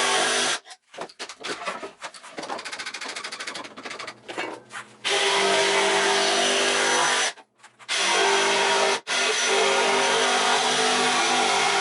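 Handheld power tool running at a steady pitch, cutting off abruptly several times, with a quieter stretch of rapid rattling near the start.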